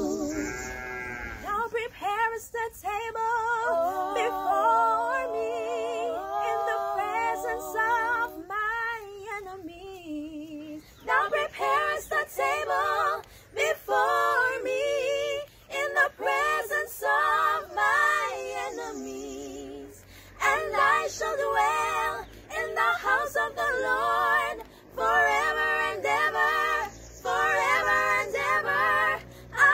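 Three young women singing a cappella in close harmony, with vibrato on the held notes, in phrases broken by short pauses.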